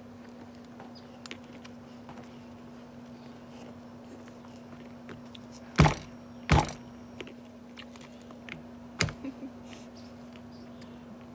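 Handling knocks from the camera being bumped and shifted: two sharp knocks less than a second apart near the middle, then a softer knock with a couple of small taps. Light clicks and a steady low hum run underneath.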